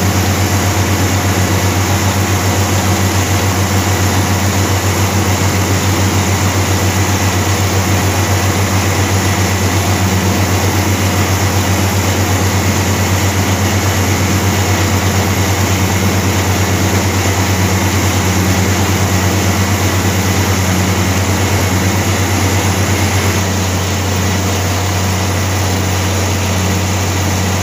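John Deere 4520 tractor's six-cylinder diesel engine running steadily under load, a deep even drone, while it pulls a manure spreader whose beaters are throwing manure. It gets a little quieter about 24 seconds in.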